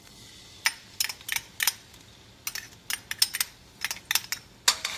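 A metal spoon tapping and scraping minced garlic out of a small ceramic ramekin into a stainless steel wok: a run of irregular sharp clinks, more than a dozen, closest together in the middle.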